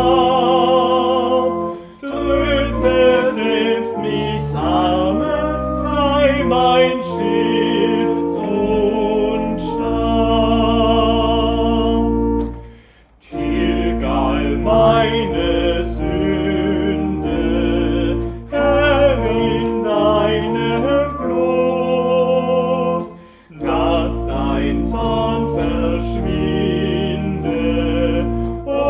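Church organ accompanying singing in a slow German hymn: a voice with vibrato over held organ chords and low pedal notes. The music breaks off briefly three times between lines.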